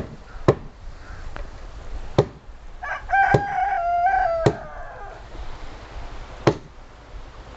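A rooster crows once, a single call of about two seconds starting about three seconds in, over sharp blows on wood about every second or two from boat-building work.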